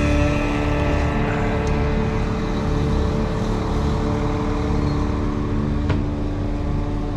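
A motor vehicle running steadily, with a constant hum over a rushing noise.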